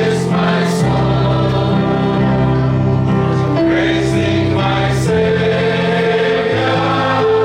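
A group of voices singing a Christian hymn in long, held notes.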